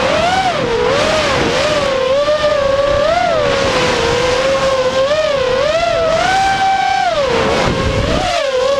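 FPV racing quadcopter's four Cobra 2206 2100KV brushless motors and propellers whining, the pitch rising and falling as the throttle is worked, over a steady rush of air. The pitch holds high for about a second past the middle, then drops.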